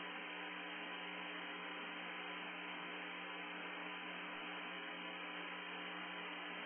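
Steady static hiss with a constant electrical hum under it, unchanging throughout, with no other sound.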